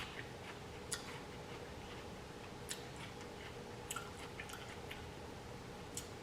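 Close-miked chewing: soft wet mouth clicks and smacks with a few sharper clicks scattered through, over a faint steady hum.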